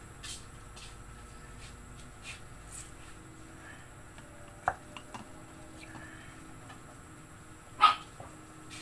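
Quiet handling of kitchen utensils and a bowl while pounded herb is worked by hand, with two sharp clinks: one about halfway through and a louder one near the end.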